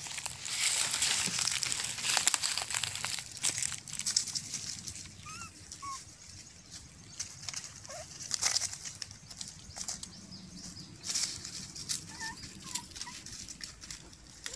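Dry fallen leaves crackling and rustling as puppies scramble and play over them, louder in the first few seconds, with a few faint short chirps.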